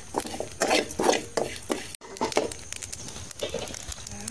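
A perforated steel spatula scrapes and stirs cumin, fenugreek and mustard seeds around a steel kadai in repeated strokes. Sharp little crackles come through it as the mustard seeds pop in the hot oil.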